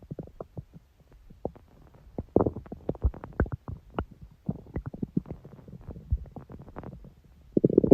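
A human stomach gurgling and rumbling in a run of short, irregular pops and bubbles. A longer, louder gurgle starts just before the end.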